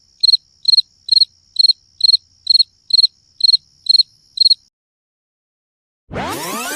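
Cricket chirping sound effect: about eleven evenly spaced high-pitched chirps, roughly two a second, stopping after about four and a half seconds. About six seconds in, a loud sweeping whoosh effect with arching rising-and-falling pitch lines begins.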